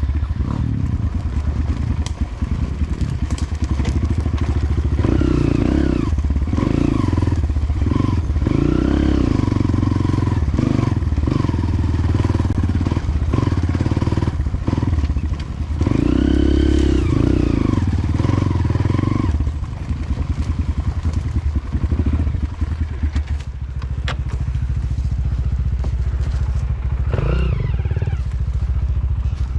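Motorcycle engine running as it is ridden, the throttle opening and closing repeatedly so the engine note rises and falls. It settles into steadier running for the last third or so.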